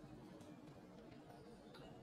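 Near silence: a faint steady background hiss with a few soft ticks.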